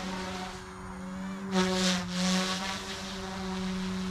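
OMP Hobby M2 Explore electric RC helicopter in flight: a steady whine from its electric motor and spinning rotor that holds nearly one pitch, growing briefly louder twice in the second half.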